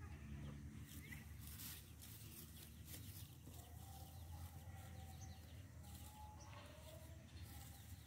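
Bali cow grazing: faint crackly tearing sounds now and then as it crops and chews the grass, over a low steady rumble. Faint wavering bird calls sound in the background through the middle and latter part.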